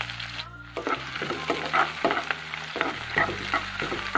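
Sliced onions, bay leaves and dried red chillies sizzling in hot oil in a nonstick kadai, with a spatula scraping and tapping the pan as they are stirred. The sizzle drops out for a moment about half a second in, and the spatula strokes come quickly from about a second in.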